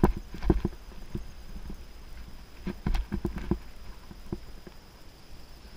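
2018 Giant Anthem Advanced 1 full-suspension mountain bike rolling over a dirt trail. The bike rattles and knocks over bumps in irregular clusters, near the start and again about three seconds in, over a low rumble.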